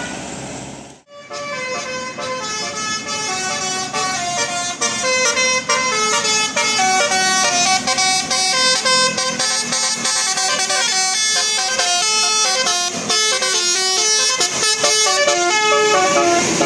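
Bus telolet horn, a bank of air horns sounding a fast tune of short stepped notes that rise and fall. There is a brief drop about a second in, then the melody runs on without a break.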